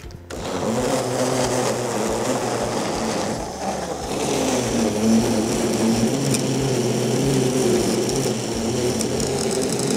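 Personal-size blender motor running, its cup pressed down on the base, pureeing jalapeños with cream cheese and cream into a thick, smooth dip. It starts just after the beginning and runs steadily, easing briefly about three and a half seconds in.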